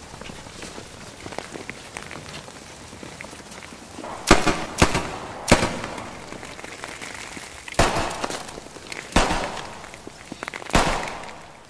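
Six gunshots at irregular intervals: three close together about four seconds in, then three more spaced over the next several seconds, each trailing off in an echo.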